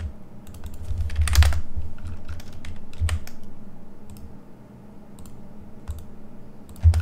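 Scattered clicks and taps of a computer keyboard and mouse, with a few dull low thumps. The busiest, loudest cluster comes about a second and a half in.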